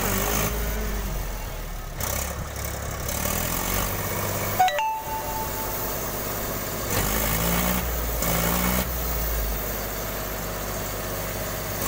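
Mahindra tractor's diesel engine working under heavy load, straining to pull a log-laden trolley stuck in mud; the engine note rises and falls several times as the driver gives it throttle.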